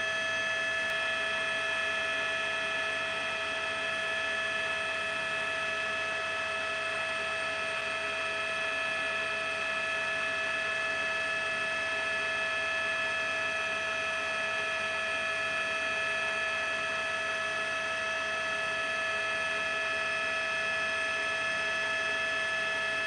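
Helicopter engine and transmission running steadily, a constant whine of several high tones over a hiss that does not change.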